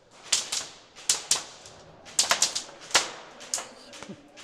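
Airsoft gunfire: about a dozen sharp cracks of shots and BB hits, coming singly and in quick clusters, thickest a little past halfway.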